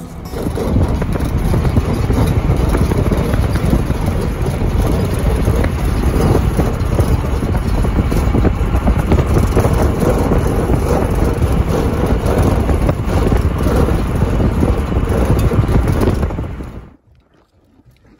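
Loud wind and road noise from a moving vehicle, heavy and rumbling in the low end. It cuts off suddenly about 17 seconds in.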